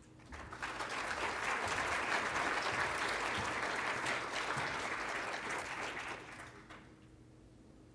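Audience applauding, building up within the first second and dying away about six to seven seconds in.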